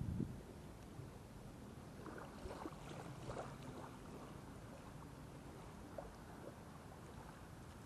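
Faint water sounds on the move: low lapping with a few light splashes, clustered about two to three and a half seconds in.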